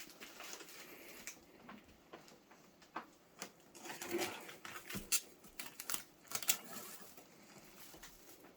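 A package being opened by hand: irregular crinkling of wrapping with scattered small clicks and taps.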